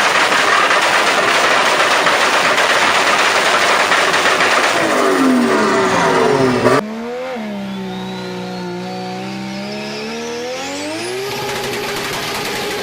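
Two turbocharged car engines, one after the other. The first runs loud at high revs, its pitch dropping just before a sudden cut. The second's engine note dips and climbs while a thin whistle rises with it, then settles into a steady drone near the end.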